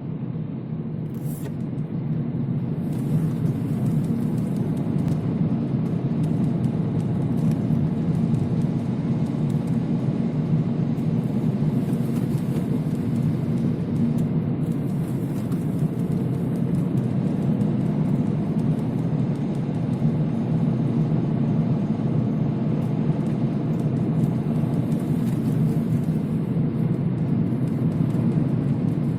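Steady low drone of a car driving, its engine and road noise running evenly without a break.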